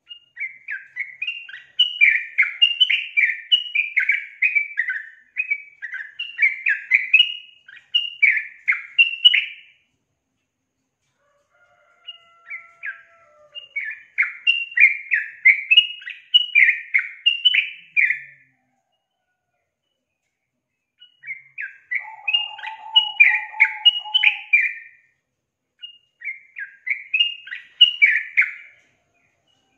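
Female yellow-vented bulbul (trucukan) singing: four bouts of quick, rapidly repeated chirping notes, broken by pauses of two to three seconds.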